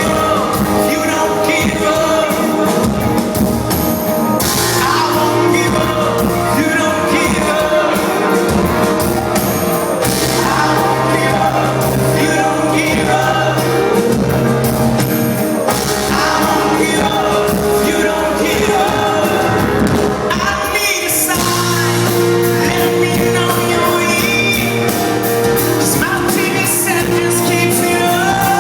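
Live rock band playing a song with a lead vocal, recorded in a concert hall.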